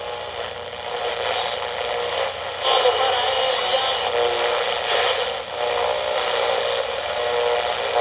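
Old-time radio sound: a tinny, narrow-band hiss and static with shifting tones running through it.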